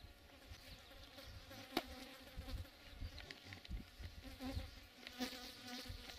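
Insects buzzing steadily and faintly, over a low rumble.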